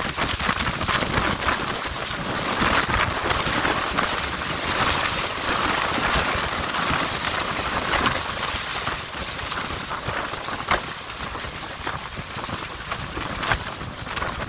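Steady rushing of wind and water on an open tour-boat deck, with gusts buffeting the phone's microphone.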